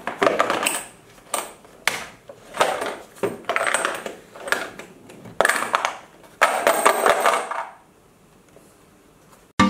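A coin rolling and rattling along the spiral track of a cardboard coin box as the box is tilted back and forth, in several short runs with a few sharp clicks. It stops about eight seconds in.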